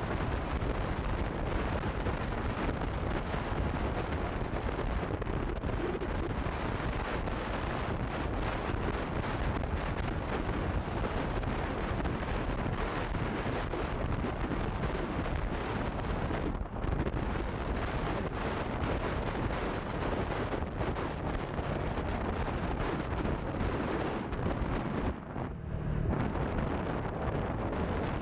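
Wind buffeting the microphone of a moving Honda CB150F motorcycle, a steady heavy rumble with the bike running beneath it. It drops briefly twice, once past the middle and again near the end.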